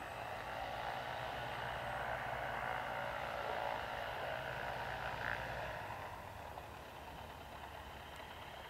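Radio-controlled foam Hawker Hurricane model aircraft passing by, its motor and propeller whirring louder for a few seconds, then fading away about six seconds in.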